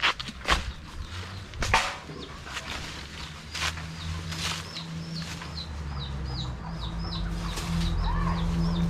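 A few sharp bursts of wing flapping or rustling, then a bird calling in quick, short high chirps, about three a second, over a low steady hum that grows louder near the end.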